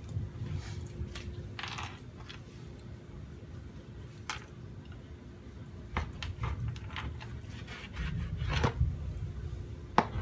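Kitchen knife cutting raw pork on a plastic cutting board, with scattered clicks and taps as the blade meets the board and slices of meat are moved; a sharp knock comes near the end. A low rumble swells about eight seconds in.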